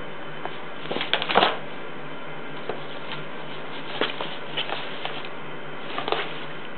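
Open cereal box rustling, crinkling and scraping as a kitten attacks it, in short irregular scuffles: the loudest about a second in, more around four and six seconds. A steady hiss underneath.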